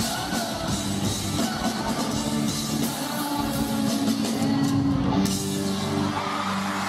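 Live rock band playing loudly with drum kit, guitars and singing. About five seconds in, the cymbals and drums stop and a held chord rings on.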